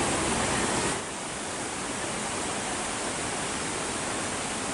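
Steady rushing of the Ponot waterfall as an even, wide hiss. The low rumble drops away about a second in, leaving a lighter, steady wash.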